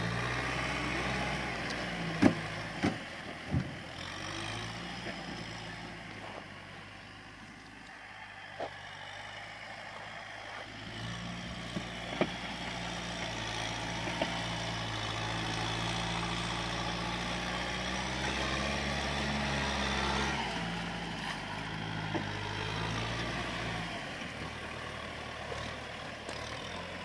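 Kubota M6040 tractor's diesel engine labouring under load as the tractor churns through deep mud; the engine note rises and falls with the throttle and runs heaviest through the middle, easing off near the end. Three sharp knocks about two to four seconds in.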